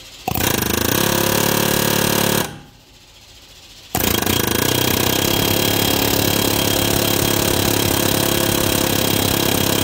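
Pneumatic air hammer rattling against a stuck pulley on a mower engine's crankshaft in two steady bursts, a short one of about two seconds, then after a pause a longer one of about six seconds, driving the seized pulley along the crank.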